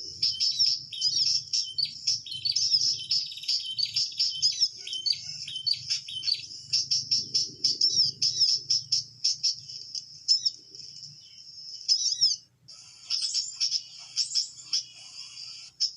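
Rapid, continuous high chirping and trilling of perenjak (small warbler-like birds), the call used to lure them into a trap. It breaks off for a moment about twelve seconds in, then resumes.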